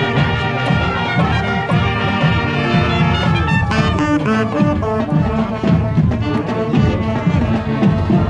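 High school marching band playing on the march: brass section with trumpets and trombones carrying the tune over a steady drum beat.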